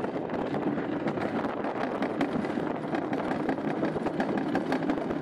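Summer toboggan sled running fast down a stainless-steel trough track: a steady rattling noise with frequent small clicks from the sled on the metal.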